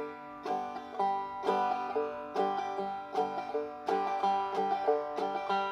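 Five-string banjo played clawhammer (frailing) style at a brisker tempo: a repeating pattern of a picked note, a downward strum across the strings and the thumb catching the fifth string, in a steady rhythm of about two strums a second.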